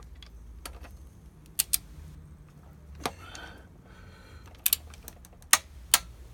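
Click-type torque wrench clicking on the motorcycle's bolts as each reaches its set torque, confirming it is tightened. There are about seven sharp metallic clicks at irregular intervals, some in quick pairs.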